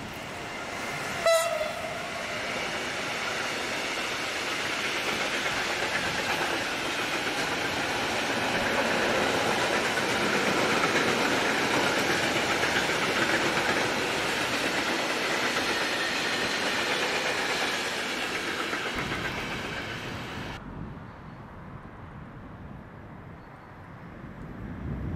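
A train passing: a very short horn toot about a second in, then the rush of wheels on rails swelling to a peak and easing off, which cuts off abruptly near the end.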